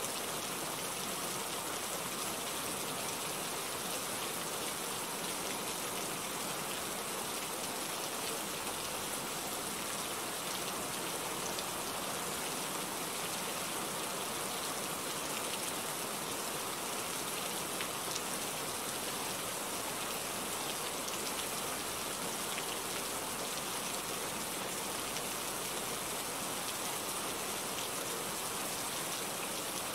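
Steady rain falling: an even hiss flecked with many small drop ticks, unchanging throughout.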